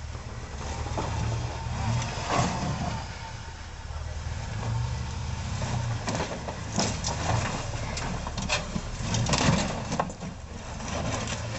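Toyota Tacoma pickup's engine running at low speed as the truck crawls over rocks, with tyres grinding on stone. Several sharp knocks and crunches of rock on the truck come about two seconds in and again through the second half.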